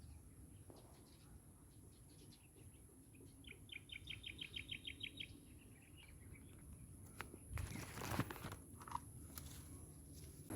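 A small bird's fast trill of about a dozen high, evenly spaced notes, followed by a few clicks and a short rustle near the end.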